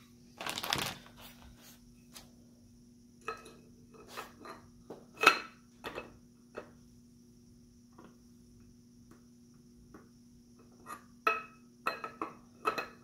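Scattered metal clicks and knocks of a Stoeger double-barrel coach gun's barrels, receiver and forend being handled while being fitted together, with a short scrape near the start and the loudest knock about five seconds in.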